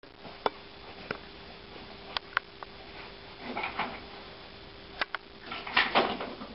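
A few light knocks and clicks, then a louder rustling scuffle near the end as a desk chair is pulled out and sat in, over a faint steady hum.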